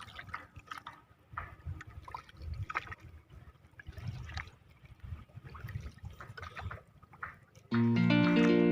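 Water lapping and trickling in small irregular splashes against a small fishing boat. Guitar music starts abruptly near the end and is the loudest sound.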